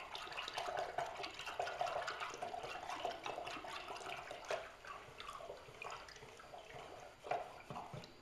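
Liquid pottery glaze being stirred with a stick in a small bucket: irregular wet sloshing and swishing with small ticks, easing off near the end.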